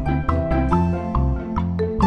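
Upbeat background music with a steady beat, a moving bass line and a bright melody.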